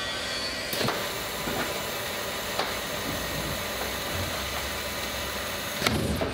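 Ecofill HT1 aseptic bag filler running while a large bag fills with liquid: a steady hissing rush, with a few sharp clicks, the loudest near the end.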